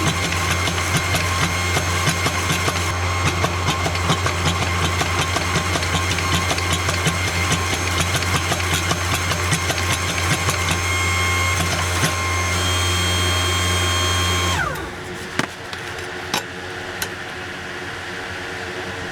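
A motor-driven shop machine running with a steady hum and whine. About fifteen seconds in it is switched off and its pitch falls quickly as it spins down, leaving a fainter steady hum.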